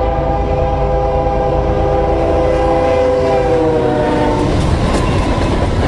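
A locomotive air horn blows one long chord over the deep rumble of the train, dropping slightly in pitch before it stops about four and a half seconds in. The horn gives way to the rattling clatter of wheels running over the track.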